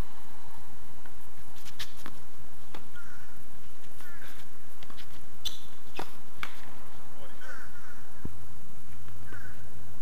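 Tennis rally on a hard court: sharp pops of the ball off racket strings and court, spaced irregularly about half a second to a second apart, with short high squeaks in between.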